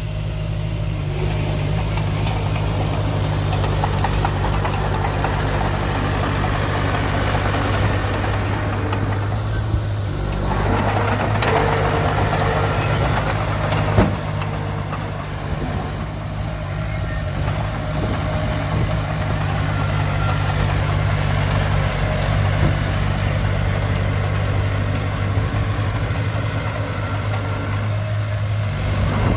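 Heavy diesel machinery running steadily at a low hum, with the working noise rising and falling and one sharp knock about halfway through.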